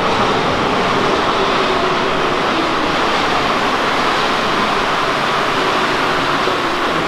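Paris Métro train pulling into the platform: a loud, steady rolling noise that eases slightly near the end as the train slows.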